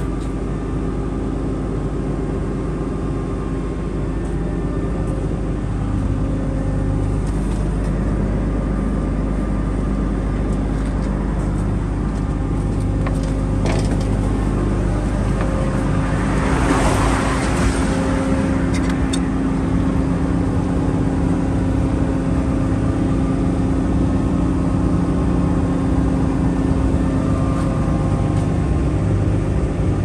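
Dynapac SD2500CS asphalt paver's diesel engine running steadily at idle. A brief rushing hiss rises and fades just past halfway.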